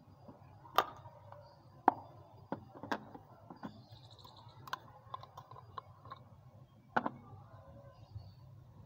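Sharp clicks and snaps of a hard plastic toilet-cleaner bottle being cut with a blade and its cut section pulled away by hand, loudest about a second in, about two seconds in and about seven seconds in, with smaller ticks between.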